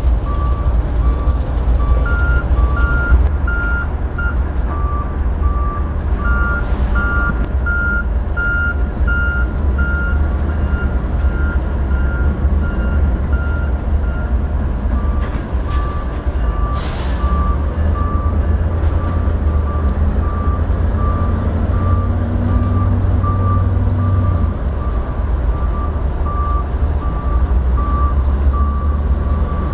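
Backup alarms beeping steadily at about two beeps a second, two alarms at different pitches, over the low rumble of idling diesel locomotives. Two short hisses of air come about halfway through.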